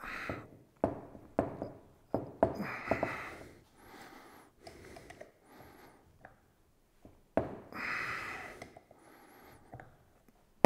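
Sharp metallic clicks and knocks of a wrench working a rocker shaft nut on an aluminium Harley-Davidson Sportster rocker box: a handful in the first two and a half seconds and another about seven and a half seconds in, with a few short breathy rustles between them.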